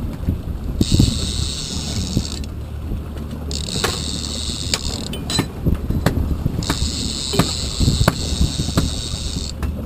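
Trolling reel whirring in bursts as line is cranked in against a hooked fish: three spells of winding, each a second and a half to three seconds long and stopping sharply, with scattered clicks. A steady low boat-engine hum runs underneath.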